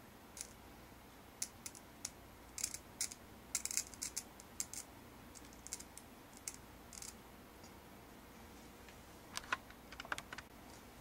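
Faint, irregular sharp clicks and crackles from a wire contact snapping against a graphite pencil lead on a 12 V battery, sparking as it connects. The clicks come thickly in the first few seconds, thin out, and return in a tight cluster near the end.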